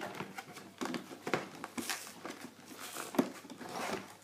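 Irregular small plastic clicks and taps as fingers press a plastic toy goal onto a brick-built football pitch plate, a part that keeps coming off.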